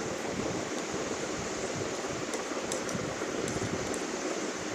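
Steady rushing hiss of background noise, even throughout with no distinct events.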